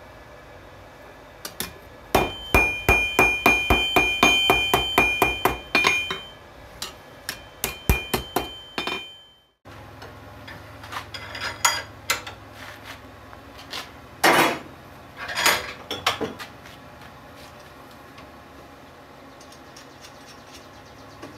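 Hand hammer striking steel on an anvil: a quick run of blows, about four a second, each with a bright metallic ring. Then slower, scattered strikes, and later a few longer noisy sounds.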